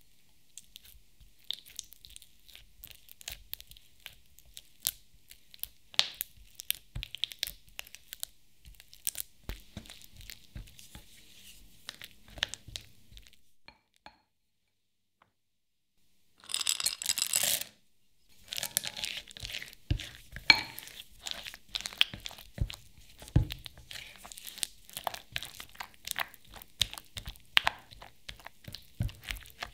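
Silicone spatula stirring and pressing softening cream cheese in a glass bowl, a string of small irregular squelches, clicks and taps against the glass. About halfway through there is a short silent gap, then a second-long louder rasp, and the stirring resumes.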